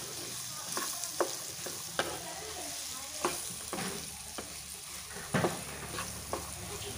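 Wooden spatula stirring diced beetroot in a frying pan of hot oil and spices: a steady sizzle with irregular scrapes and knocks of the spatula against the pan, the loudest about five and a half seconds in.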